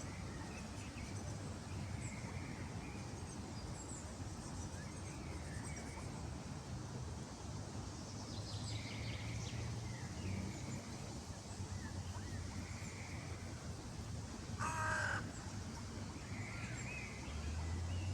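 Birds calling outdoors: scattered short calls and chirps, with one louder call about fifteen seconds in, over a steady low rumble.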